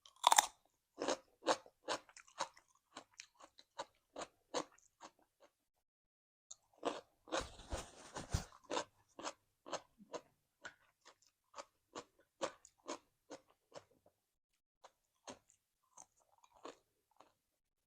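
Close-up chewing of crunchy cucumber salad with raw vegetables, crisp crunches coming about two a second. A louder, denser crunch comes about seven seconds in.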